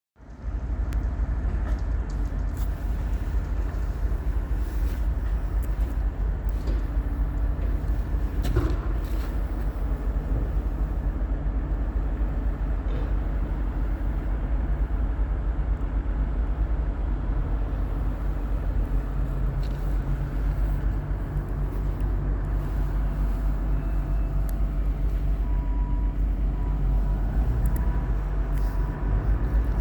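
2003 Komatsu PC220LC-7 hydraulic excavator's diesel engine running steadily, with one knock about eight and a half seconds in.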